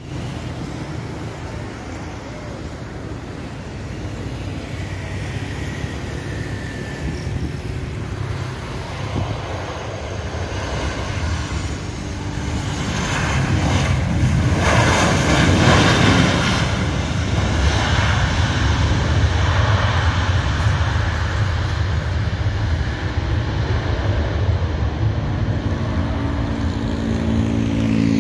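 Twin-engine jet airliner landing: steady engine noise that grows louder about halfway through and peaks as the aircraft passes on the runway, then stays loud.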